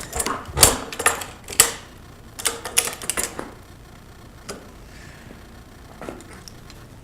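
Quick clusters of clicking and clattering in two bursts over the first three and a half seconds, then a couple of faint ticks: a clamp being fitted and tightened to hold a lawn mower's safety bail lever down against the handle.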